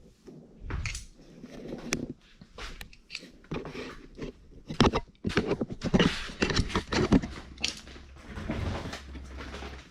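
Irregular clicks, clanks and crunching of hand tools at work, with pliers cutting and tugging at the car's brake parts; the busiest stretch comes in the second half.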